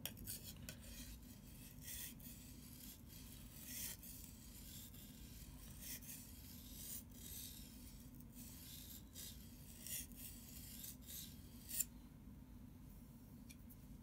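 A survival knife's blade is stroked back and forth on a wet whetstone, giving faint, repeated scraping strokes about twice a second. The strokes stop about twelve seconds in.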